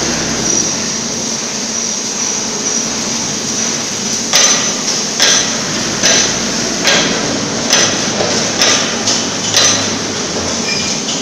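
A hammer striking metal: about eight evenly spaced blows a little under a second apart, starting about four seconds in, over steady workshop machinery noise.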